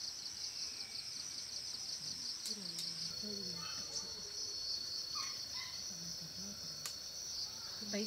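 Insects chirring in a high, loud chorus: a fast pulsing trill for about the first three seconds, then a continuous high whine. Faint voices and a few sharp clicks can be heard beneath it.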